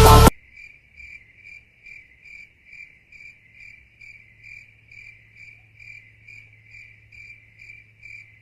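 Cricket chirping at an even pace, a little over two chirps a second: the stock cricket sound effect used for an awkward silence. A loud burst of music cuts off just at the start.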